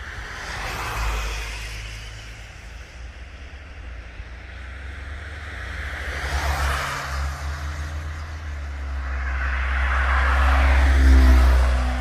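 Cars passing by on a road, three swells of tyre and engine noise, the last and loudest near the end, over a steady low rumble of wind on the microphone.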